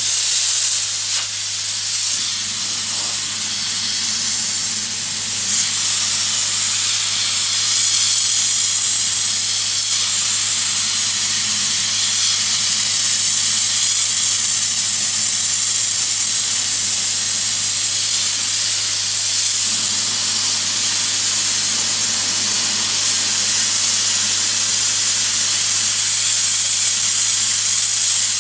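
Bead blaster nozzle hissing steadily as it blasts beads with compressed air against calcium-crusted pool waterline tile, with a steady low hum underneath.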